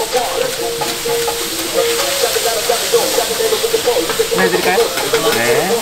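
Pad thai noodles, bean sprouts and onion frying on a hot flat griddle, a steady sizzle as they are tossed and stirred with wooden spatulas. A steady hum runs underneath.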